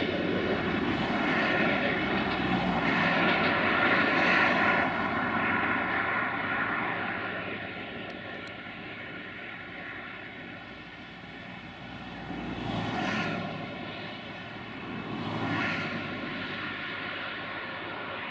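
Passenger train hauled by a GM class 64 diesel locomotive pulling away. Its steady engine drone and wheel noise fade as it recedes, with two brief swells near the end.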